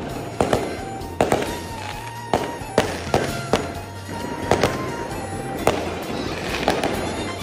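Fireworks going off: about a dozen sharp bangs at irregular gaps of half a second to a second, over background music with a steady bass line.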